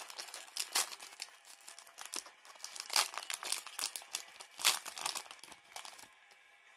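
Foil wrapper of a Pokémon Sword and Shield booster pack crinkling and tearing as it is ripped open by hand, in irregular sharp crackles; the rustling stops about six seconds in.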